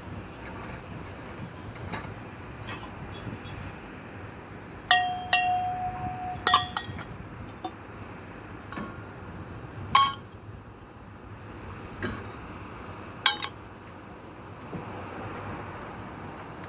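Sharp metallic clinks and clangs at irregular intervals over a steady low background rumble. A cluster comes about five seconds in, one ringing on briefly with a held tone, then single louder strikes a few seconds apart.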